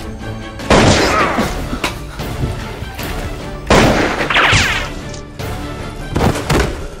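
Background music with three loud gunshot-style sound effects, about three seconds apart, each with a long ringing tail.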